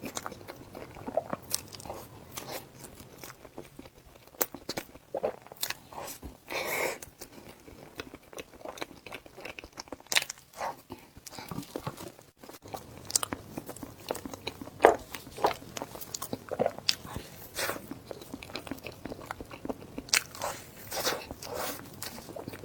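Close-miked eating: a person biting and chewing food, with irregular crunches and mouth clicks.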